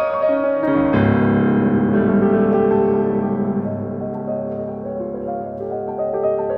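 Keyboard music: a chord struck about a second in rings and slowly fades, then single notes move on above it near the end.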